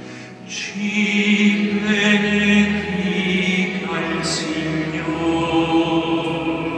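Slow choral chant: voices singing long held notes in a hymn-like line, stepping up to a higher note about four seconds in.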